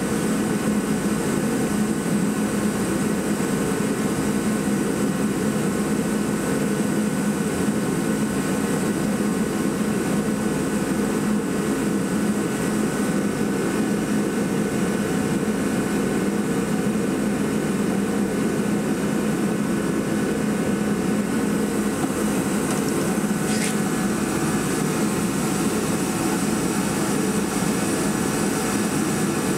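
Steady mechanical hum of a running machine, even and unchanging throughout, with one brief faint tick about three quarters of the way through.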